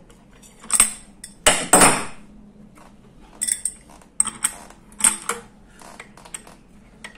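Metal tools clinking and clattering against the e-bike hub motor's axle and nut as the nut is worked off, in a series of sharp clinks with the loudest clatter about a second and a half in.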